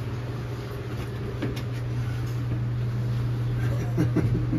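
Steady low mechanical hum inside a submarine compartment, with a few faint clicks over it.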